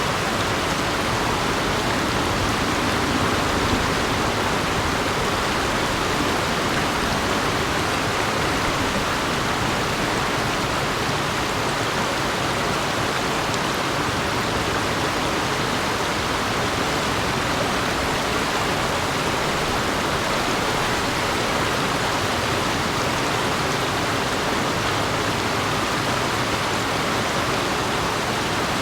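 River water rushing steadily, an even continuous wash with no breaks.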